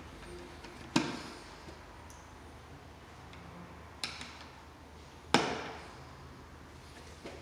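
Screwdriver clicking and knocking against an electrical outlet's terminal screw and metal strap as the screw is turned: two sharp clicks with a short ringing tail, about a second in and just past the middle, and a few fainter ticks between them and near the end.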